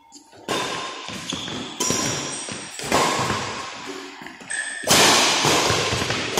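Badminton racket strikes on a shuttlecock during a rally, four sharp hits a second or two apart, each ringing on in the echo of a large metal-walled hall.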